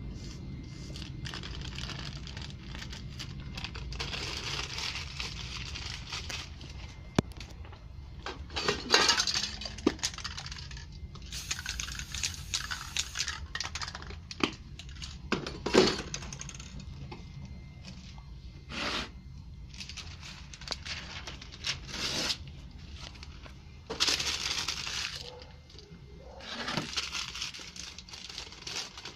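Aerosol spray-paint can spraying in several hissing bursts, each from about one to a few seconds long, with magazine paper crinkling and tearing and small knocks between the bursts.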